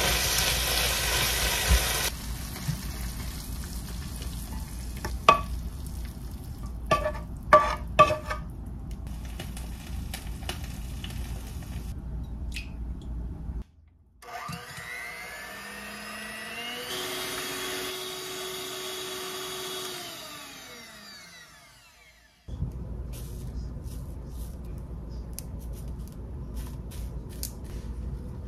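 Kimchi and pork stir-frying in a pan: a steady sizzle, loudest at first, with a few ringing clinks of a utensil against the pan about five to eight seconds in. Partway through, the sizzle gives way for several seconds to a quieter passage with sliding tones, then comes back with small clicks.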